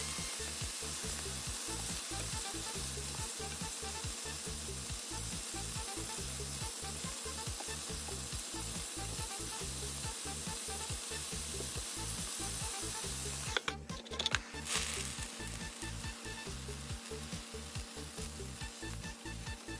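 Pork ribs sizzling steadily as they sear in a double-sided frying pan. About two-thirds of the way through, a few sharp clicks as tongs turn the ribs.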